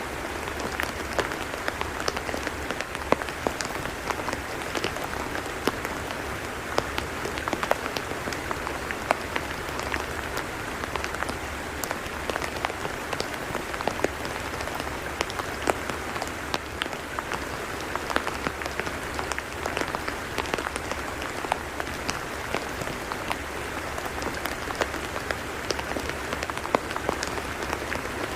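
Rain falling on a tidal mudflat: a steady, dense patter of many small drops, with a steady low rumble underneath.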